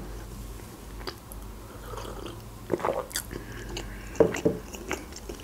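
A person chewing a soft croissant with the mouth closed: scattered soft wet smacks and mouth clicks, a few of them a little louder about three and four seconds in.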